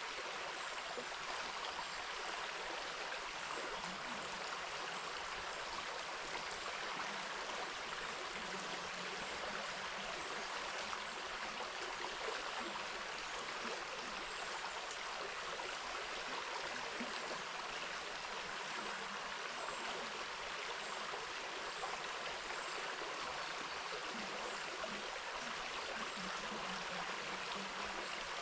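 Shallow river water running over stones, a steady rushing babble.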